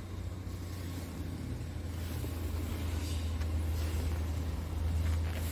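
Scania R truck's engine idling steadily, a low even hum heard from inside the cab.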